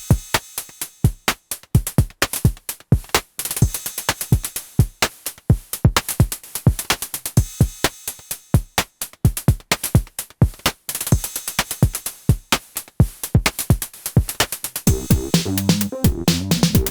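Electronic drum machine and percussion synth pattern at 128 bpm, playing dense rhythmic clicks and hits with no bass line under it. The low sequenced bass and synth part comes back in about fifteen seconds in.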